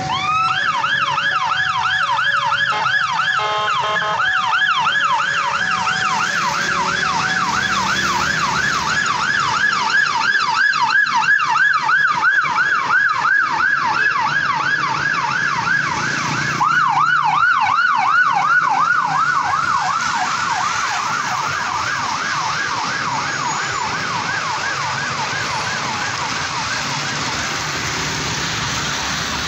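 Police car siren in a fast yelp, its pitch sweeping up and down about three times a second over the noise of traffic on a wet road. It starts sharply and fades gradually over the last ten seconds or so.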